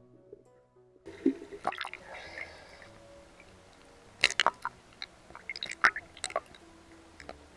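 Water splashing and dripping around the camera as it comes up out of the water about a second in, with several sharp splashes, over steady background music.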